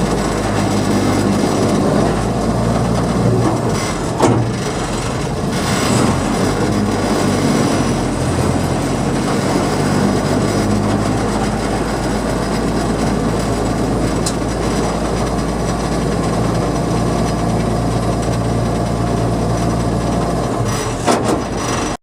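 TMC100F track motor car running along the rails: its engine runs steadily and the engine note shifts a few times, over the noise of the wheels on the track. There are a few sharp knocks, one about four seconds in and another near the end.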